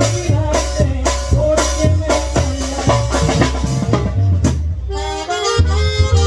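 A tamborazo band playing live: a tambora bass drum and cymbal keep a steady beat under saxophones. The band drops out briefly just before five seconds in, then comes back with the horns on held notes over the drum.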